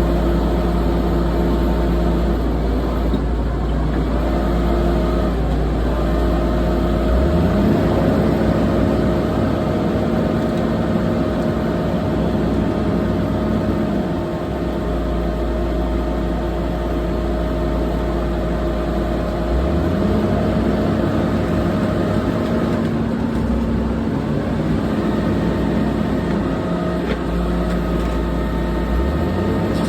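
Komatsu D68ESS crawler bulldozer's diesel engine running hard while the dozer drags logs. Its pitch steps up and down several times as the load and throttle change.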